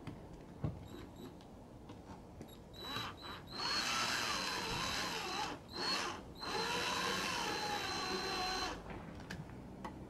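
Cordless drill whirring, a few short blips and then two longer runs of a couple of seconds each, its pitch wavering as the load changes, as it drives a self-tapping screw into the plastic diffuser under a Vauxhall Corsa E's rear bumper.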